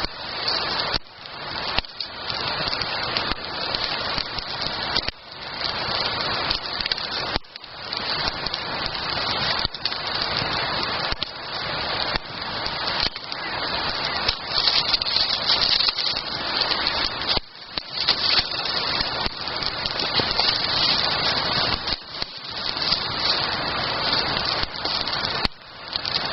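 Campfire of split firewood burning close by, a dense steady hiss of flame crackling with many small pops.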